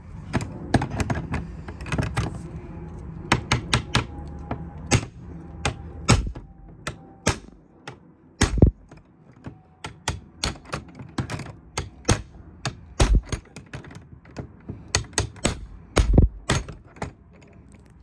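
Hammer repeatedly striking a crowbar hooked through the shackle of a cheap laminated steel padlock on a hasp, trying to force the lock open: dozens of sharp metallic whacks at an irregular pace, some much heavier than others.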